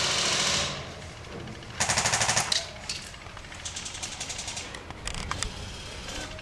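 Airsoft guns firing rapid full-auto bursts: a loud burst at the start, another about two seconds in, then fainter bursts and a few single shots.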